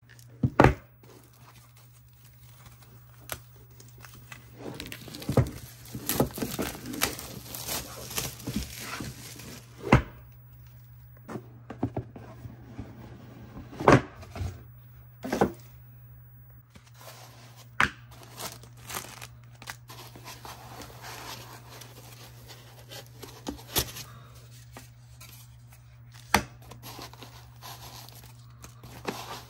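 Unboxing handling noise: a cardboard box and its packing being torn open, plastic wrap crinkling, and several sharp knocks as the box and lid are handled and set down.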